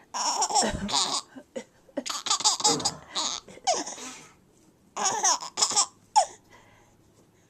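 A baby laughing in about six bursts, stopping a little before the end.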